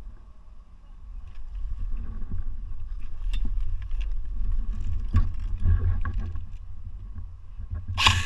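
Footsteps and rustling undergrowth as a player moves through woodland, over a steady low rumble on the body-worn camera's microphone. A short, sharp burst of noise near the end.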